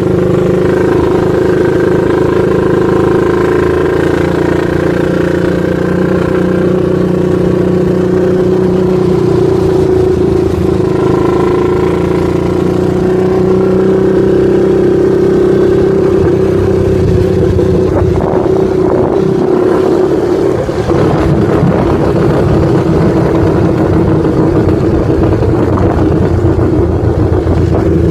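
Small off-road vehicle engine running at a steady pace, heard from aboard while riding. It drones on one held pitch and turns rougher and noisier about two-thirds of the way through.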